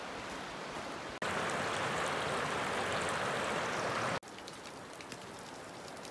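Blackburn Fork river running over shallow rocky riffles, a steady rush of water. It jumps suddenly louder about a second in and drops suddenly quieter about four seconds in.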